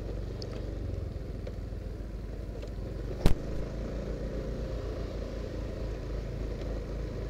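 Motorcycle engine running steadily at low speed while riding, with one sharp knock about three seconds in.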